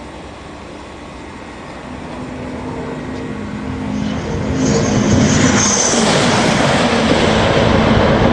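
High-speed maglev train approaching and rushing past: a rising rush of air with a faint steady whine, growing loud about five seconds in and staying loud.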